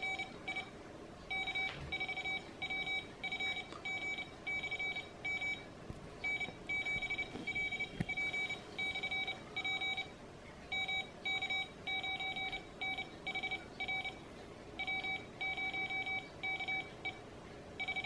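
Arduino-based Morse code tutor sending random amateur radio call signs in Morse code at 24 words per minute through a small loudspeaker. A single-pitched beep is keyed on and off in dots and dashes, grouped into call signs with short pauses between them.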